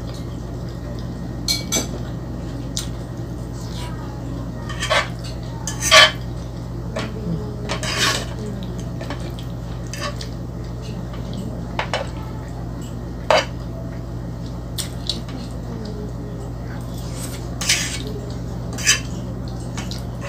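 Metal fork scraping and clinking against a nonstick frying pan while scooping creamy spaghetti: short, irregular clicks and scrapes every second or few seconds.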